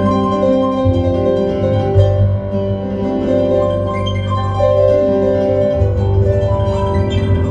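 Improvised piano music: layered chords ringing over a held deep bass, the notes changing every second or so.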